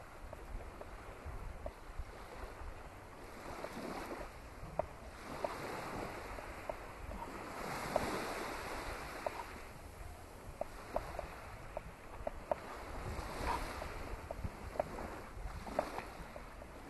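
Beach ambience: small waves washing on the sand shore in slow swells, with wind rumbling on the microphone. Short faint high ticks are scattered throughout.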